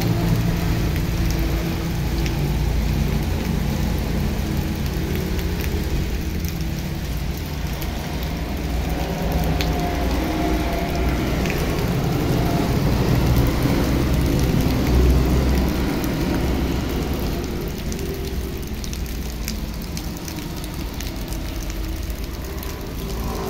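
Heavy rain pouring steadily onto wet ground and puddles, with a low rumble underneath that swells in the middle and eases off toward the end.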